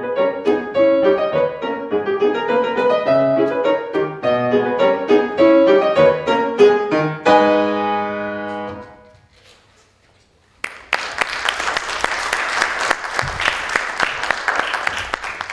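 Grand piano played solo: a quick stream of notes ends on a final chord, held and left to ring away for about two seconds. After a moment of silence, applause starts about ten and a half seconds in and carries on.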